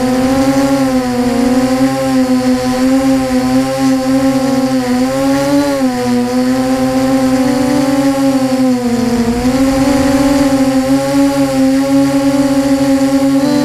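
HK Scarab 360 multirotor's motors and propellers whining steadily, heard from the onboard camera. The pitch wavers up and down with throttle, with a dip about nine seconds in.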